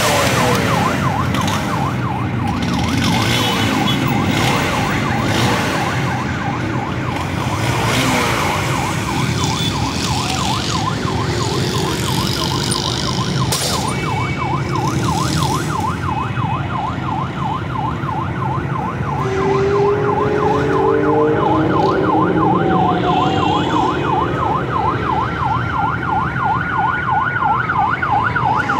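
Electronic siren in rapid yelp mode, a quick up-and-down whoop several times a second, changing to a slower rising and falling wail near the end.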